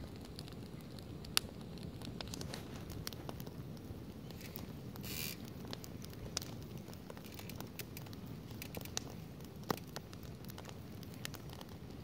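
Campfire of burning split firewood logs crackling, with irregular sharp pops over a steady low rumble; two louder pops about one and a half and nine and a half seconds in, and a brief hiss about five seconds in.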